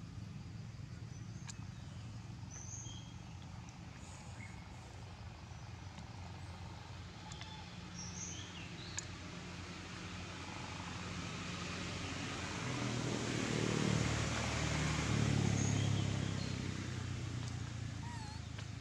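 A motor vehicle passing: its engine sound swells over several seconds, peaks about three-quarters of the way in, then fades, over a steady low hum with occasional bird chirps.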